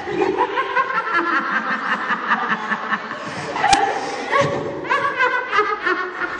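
Crowd of people chatting and laughing, several voices overlapping, with one sharp click a little before four seconds in.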